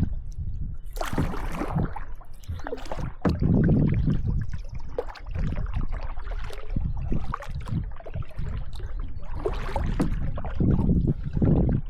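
Water sloshing and splashing around a small boat, with scattered knocks on the hull and uneven low rumbling surges, as the boat is moved along while trolling.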